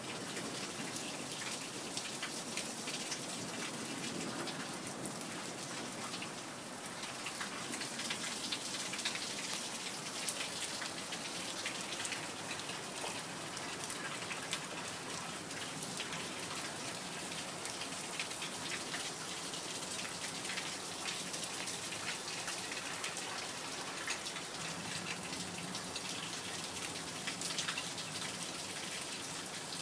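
Steady rain falling, with many single drops ticking and spattering close by.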